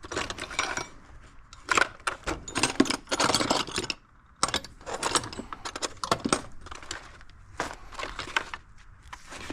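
Metal clinking and jangling as stacks of thin steel feeler gauge blades are handled and sorted through, with irregular light clicks throughout.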